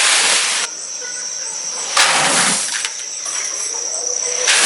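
Gusts of rushing noise that come and go, like wind or handling on the microphone, over a steady high-pitched insect trill.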